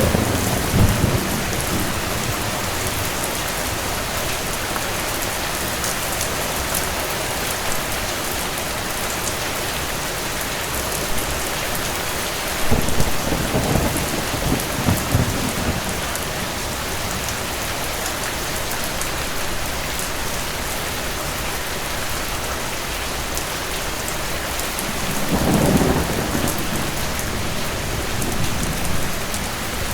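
Steady rain, with distant thunder rumbling low three times: a fading roll at the start, one about halfway through and another near the end.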